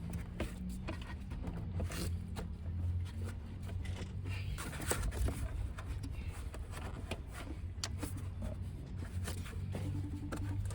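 Scattered light clicks and scrapes of plastic engine-bay parts being handled as the air intake box is clipped back into place, over a steady low hum.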